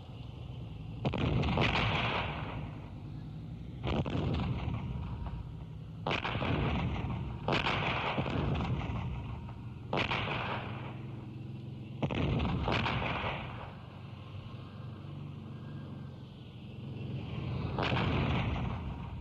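Artillery fire: about half a dozen heavy booms a couple of seconds apart, each starting suddenly and fading over a second or two, over a steady low rumble.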